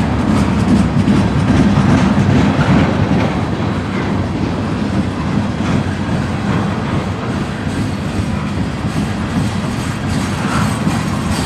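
Freight cars of a trash train, flatcars loaded with waste containers, rolling past: a steady rumble of steel wheels on the rails.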